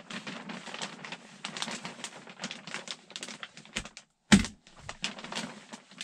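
Plastic poly vapor barrier sheeting crinkling and crackling as it is pulled and pressed up against the rafters, with one sharp hammer blow about four seconds in as it is nailed in place.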